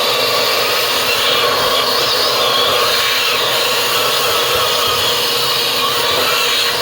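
Vacuum cleaner motor running steadily with a constant airy whoosh.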